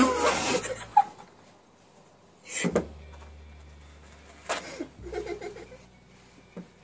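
Laughter in short breathy bursts, loudest at the very start, with quieter stretches between.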